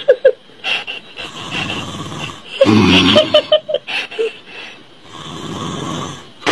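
A man snoring loudly in rough, rattling breaths a few seconds apart. The loudest snore comes about halfway through, and a quieter breath swells near the end.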